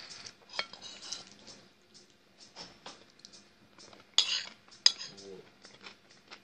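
Metal fork scraping and clinking against a ceramic plate while scooping Olivier salad, with close-up chewing between scoops. The loudest clinks come about four and five seconds in.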